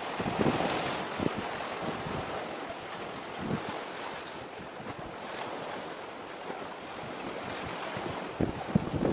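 Wind and sea noise: a steady rush of wind and waves, with gusts buffeting the microphone in low thuds a few times, most sharply near the end.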